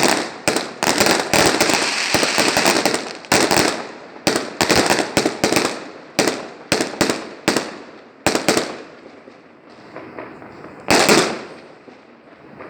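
Fireworks going off: a rapid run of sharp bangs that thins out after about nine seconds, then one last loud bang near the end.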